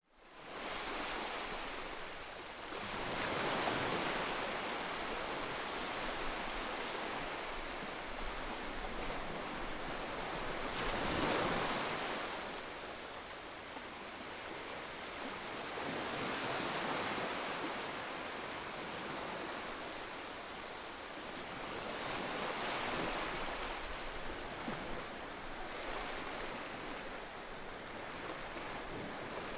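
Ocean surf: waves breaking and washing in a steady rushing hiss that swells with each wave, about every six seconds.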